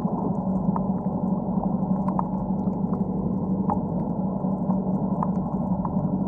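Underwater reef ambience: a steady muffled low rush and hum, with scattered faint clicks and pops at irregular intervals.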